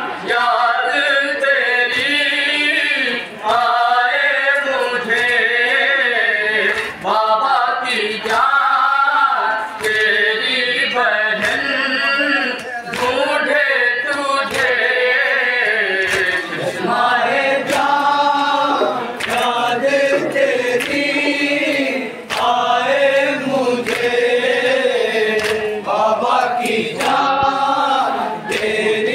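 A group of men chanting a noha, a Shia Muharram lament, in unison, phrase after phrase with short breaks between lines. Short sharp hits sound now and then through the singing.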